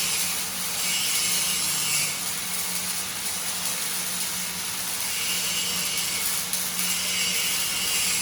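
Semi-automatic gas-shielded arc welding: the welding arc crackles and hisses steadily, with a steady low hum underneath.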